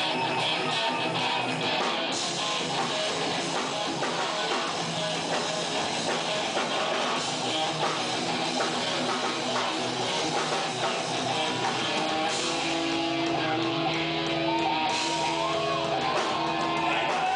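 Guitar-driven hardcore rock music from a band, at a steady loudness, with some notes held longer from about two-thirds of the way in.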